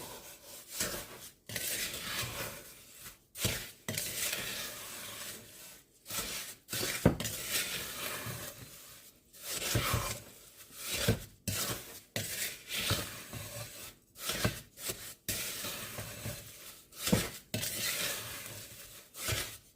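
Wooden spoon stirring a damp, gritty mix of washing soda, borax and coarse salt wetted with lemon juice in a bowl. Repeated scraping strokes come with short pauses between them, and now and then a sharper click.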